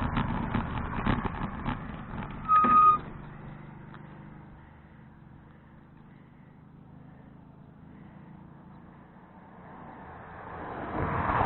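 A motor vehicle passing and fading away, with a short, loud, high-pitched squeal about two and a half seconds in; after a quiet stretch, another vehicle approaches and grows louder near the end.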